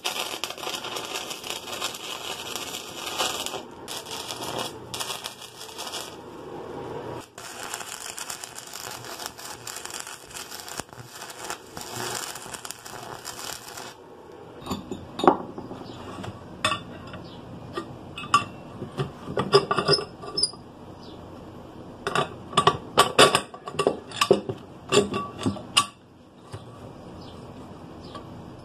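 Stick (arc) welder running beads on steel: a steady crackling hiss with a few short breaks, which stops abruptly about halfway through. After that, scattered light metallic clinks and taps of the steel parts being handled.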